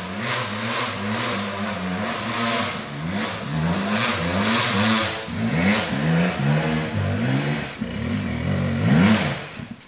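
Enduro dirt bike engine revving under load on a climb, the throttle opened and closed again and again so the pitch keeps rising and falling. The blips come quicker and sharper after about three seconds, and it is loudest just before it cuts off suddenly at the end.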